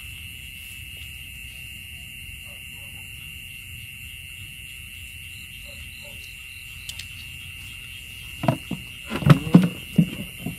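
Steady high-pitched insect chorus from the rice field, with a run of several loud, low calls in the last two seconds.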